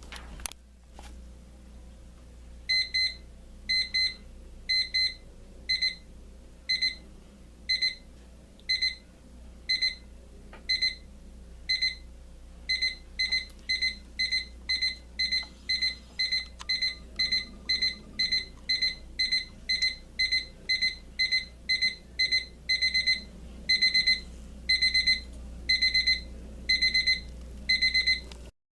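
Equity by La Crosse digital alarm clock sounding its several-stage beeping alarm after a click: single high electronic beeps about once a second, quickening about ten seconds in to roughly two a second, then longer, louder beeps near the end before it cuts off suddenly.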